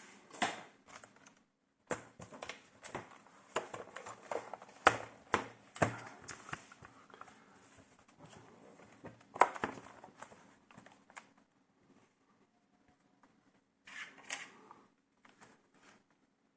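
Irregular clicks, taps and knocks of a laptop and its parts being handled, most of them in the first ten seconds or so, with another short cluster near the end.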